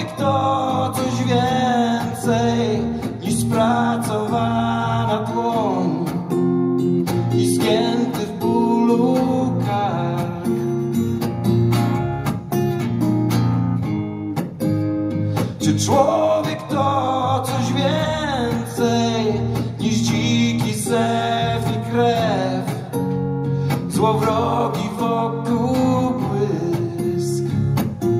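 Acoustic guitar played with a man singing over it in several long melodic phrases.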